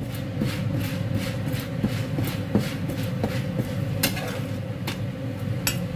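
Metal spatula pressing and scraping a roti on a cast iron tawa as it fries in a little oil: a run of irregular light clacks over a steady low hum.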